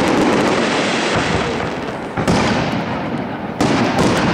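Aerial firework shells bursting overhead, one after another: sharp bangs, each trailing off in a long rumbling echo, with fresh bangs a little over two seconds in and again about three and a half seconds in.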